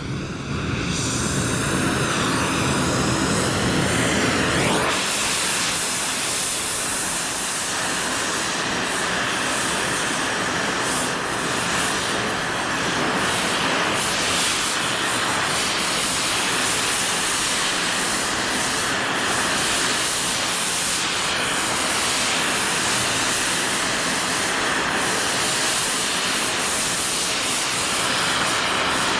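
Gas heating torch burning with a steady hiss while heating steel to bend it, its low rumble dropping away about five seconds in.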